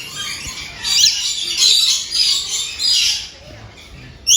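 Many birds in an enclosure chirping and squawking together, with high-pitched calls overlapping in bursts and easing off briefly near the end.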